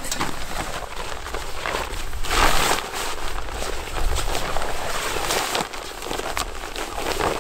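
Rustling, crackling handling noise with many small sharp clicks, louder for a moment about two and a half seconds in, over a steady rumble of wind on the microphone.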